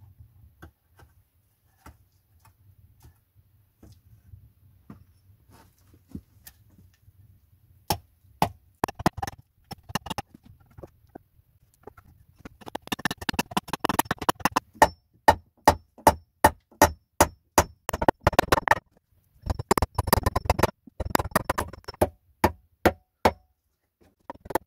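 Hammer blows driving nails into a wooden board. A few faint knocks and handling sounds come first. From about eight seconds in there is a run of sharp, rapid strikes, several a second, broken by two short pauses.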